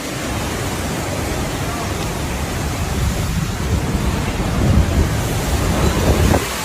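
Strong storm wind during a tornado outbreak, buffeting the microphone: a steady rushing noise with a heavy low rumble that swells about four to five seconds in.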